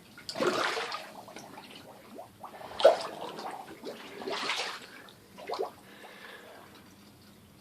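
Floodwater in a basement sloshing and splashing, in about four bursts of a second or less.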